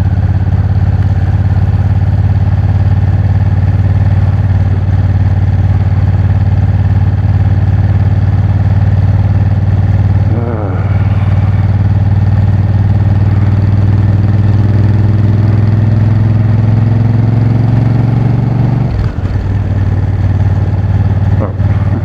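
2019 Honda Africa Twin's parallel-twin engine running while riding, the note climbing slowly. There is a brief dip and change in the engine note about halfway through, and the note drops off near the end as the throttle closes.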